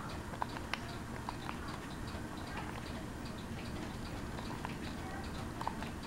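Hampton Bay Miramar 60-inch ceiling fan running, with a steady low hum and a light, even ticking several times a second, plus a few sharper clicks.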